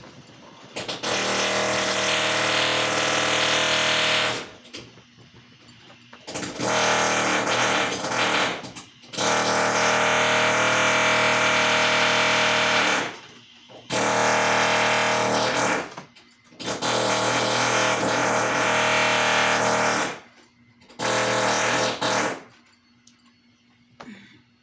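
A loud, steady-pitched mechanical buzzing in six bursts of one to four seconds each, each starting and stopping abruptly.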